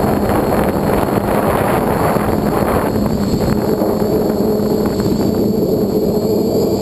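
Quadcopter's electric motors and propellers buzzing steadily, heard from its onboard camera with wind rushing over the microphone. A second, higher-pitched hum joins about halfway through.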